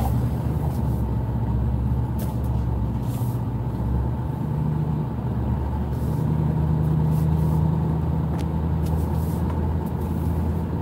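Steady engine and road noise inside the cab of a moving four-wheel-drive vehicle. The engine note rises slightly about halfway through.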